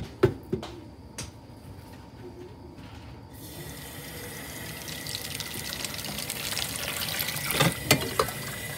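Kitchen tap turned on about three seconds in, water running into a glass electric kettle to fill it, with a steady hiss that grows louder. A few sharp knocks come at the start and again near the end.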